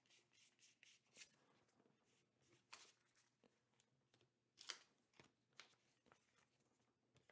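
Faint, scattered flicks and taps of MetaZoo trading cards being handled and laid down on a table, the clearest a little under five seconds in.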